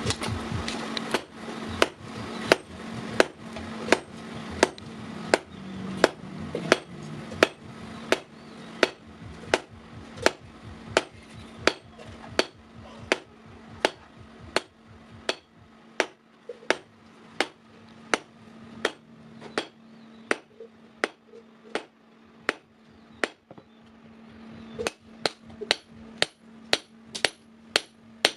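Hammer striking steel on an anvil in a steady rhythm, about one and a half blows a second, as a sickle blade is forged. A steady low hum runs underneath.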